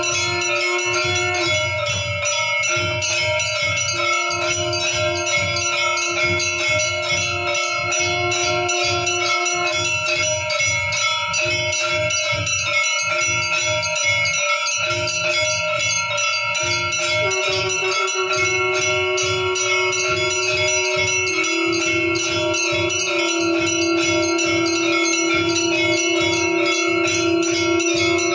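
Temple aarti bells ringing continuously in rapid strokes, with a low throb underneath. A held tone steps to a new pitch twice in the second half.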